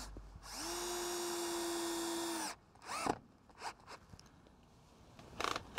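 Cordless drill/driver driving a screw into the new base trim of a porch column. The motor spins up, runs at a steady pitch for about two seconds and stops, then gives a short rising whine about three seconds in.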